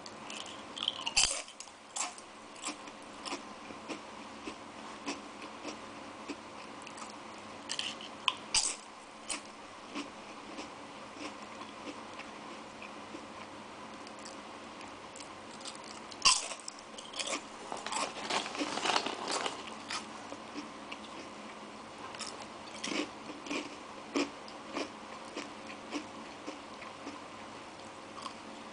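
Tongari Corn, a crisp horn-shaped corn snack, being bitten and chewed with irregular sharp crunches. There are clusters of louder crunching about a second in, around a third of the way through, and a denser run past the middle.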